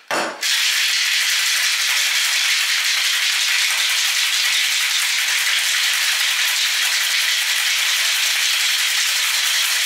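A cocktail shaker, metal tin joined to a mixing glass, being shaken hard and without a break to mix vodka and apple liqueur, starting about half a second in.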